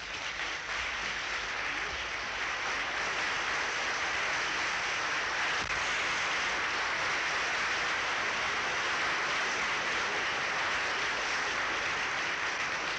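Studio audience applauding steadily. It swells in the first second and starts to die away near the end.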